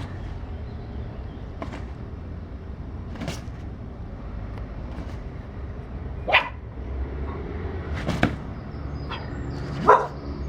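A few short, sharp dog yips, the two loudest about six and ten seconds in, over a steady low rumble.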